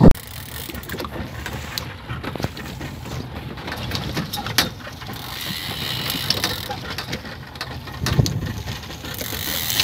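Handling noise aboard a small open fishing boat while a marlin is fought on a heavy rod and reel. A sharp knock comes at the very start, then scattered clicks and small knocks over a steady low rumble.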